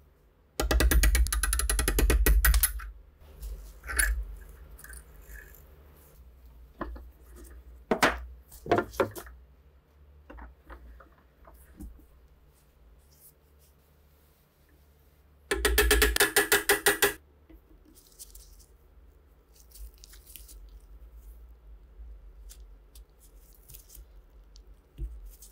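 Steel tools worked against rusted SVT-40 rifle parts: two bursts of rapid, evenly spaced metallic striking, one lasting about two seconds near the start and one about a second and a half just past the middle, with single knocks and clinks of metal between and after them.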